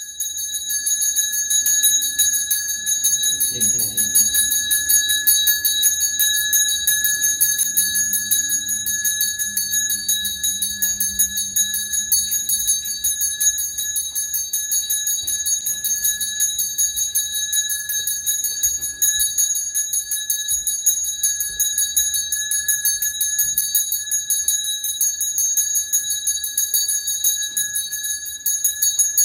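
Handheld ritual bell shaken rapidly and without pause, giving a continuous high, pulsing ring.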